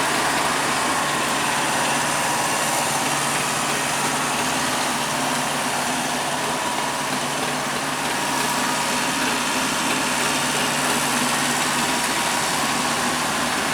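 An engine running steadily at a constant speed, with no changes in pitch or level.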